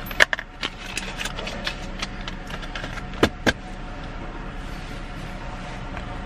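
Car cabin with the engine idling as a steady low hum, and a scattering of sharp clicks and knocks from things being handled, the two loudest close together a little over three seconds in.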